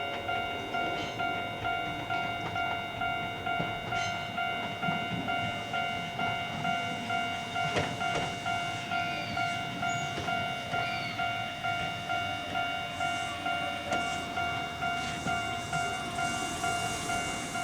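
Japanese railroad crossing's electronic warning bell ringing, an even repeating ding about three times every two seconds.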